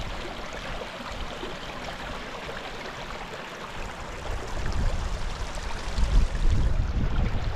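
Small moorland stream (a fell beck) trickling and babbling over stones. From about halfway a low rumble of wind on the microphone grows stronger.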